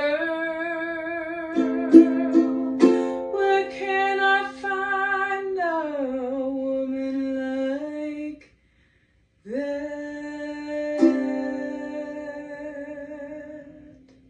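A woman singing long held notes to ukulele strums, the notes gliding down in pitch about six seconds in. After a brief break, a final long note over one last strum fades away.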